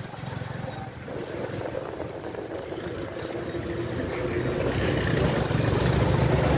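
A motor vehicle engine running on the move along a road: a low, pulsing rumble that grows louder toward the end.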